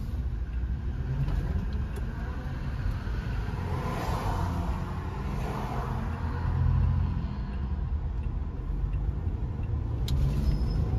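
Road and engine noise inside a moving Toyota car's cabin: a steady low rumble that swells briefly about two-thirds of the way through.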